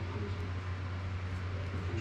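Steady low hum with an even hiss underneath: continuous room background noise, with no distinct event.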